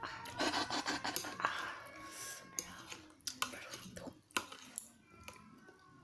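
Eating utensils scraping and clinking against a dish of tteokbokki: a couple of seconds of scraping, then a series of sharp clicks.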